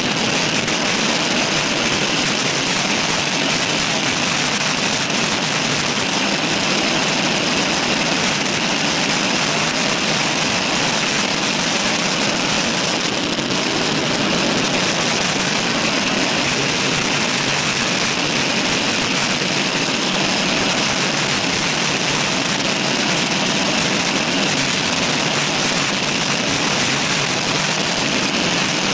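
Steady, unbroken wind and road noise from a camera mounted on a road bike's handlebars while riding at speed.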